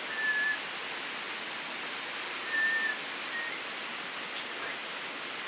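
Steady rain falling, an even hiss, with a few short high-pitched chirps: one near the start and two around the middle.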